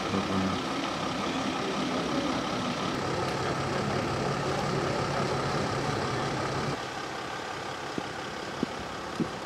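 A vehicle engine idling steadily, with a low hum and a higher whine that stop about seven seconds in, leaving quieter background noise and a few faint clicks.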